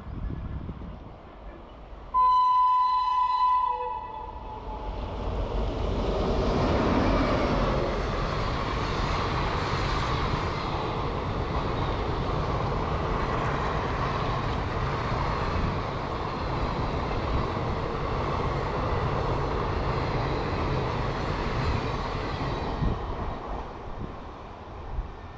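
WAP-7 electric locomotive's horn, one blast of about two seconds, then a passenger express passing close by: a steady rumble and rattle of coach wheels on the rails that falls away near the end.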